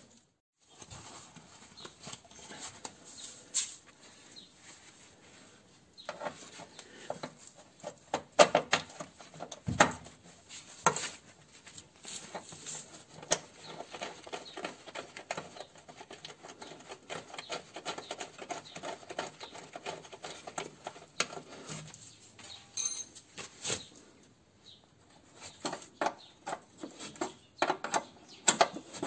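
Hand tools and parts being handled during brake hose work on a car: irregular clicks, taps and knocks with some scraping and rubbing. There is a short lull about a second in and another about 24 seconds in.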